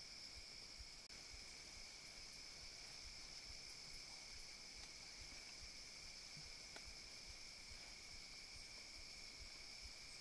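Faint, steady chorus of field insects, holding two constant high pitches, with a brief dropout about a second in.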